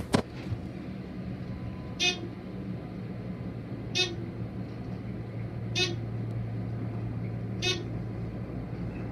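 ThyssenKrupp-modernized traction elevator car going up, its floor-passing tone sounding a short beep about every two seconds as each floor goes by, over the steady low hum of the car in motion. A single click just after the start.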